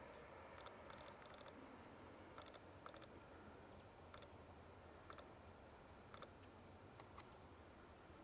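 Faint clicking of a rook's beak pecking at suet and peanuts on a wooden tree stump: scattered single taps and short quick runs of taps over a quiet background hiss.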